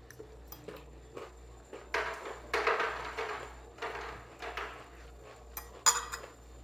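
Eating and handling noises: crunching on a jalapeño stuffed with Takis, with small clicks of a plate or utensil. A sharp tap comes near the end.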